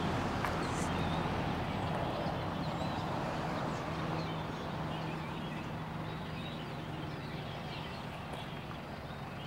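Outdoor background noise: a steady low hum with birds chirping now and then.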